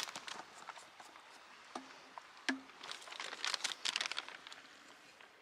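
Crinkling and rustling of an MRE flameless ration heater's plastic bag and cardboard packaging being handled, with a few light knocks. It is busiest about three to four seconds in.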